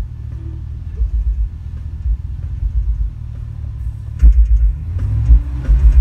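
High-powered car audio subwoofers playing a heavy metal track loudly inside the vehicle, mostly deep thumping kick drum and bass, which overloads and distorts the camera mic. The bass hits get much louder about four seconds in.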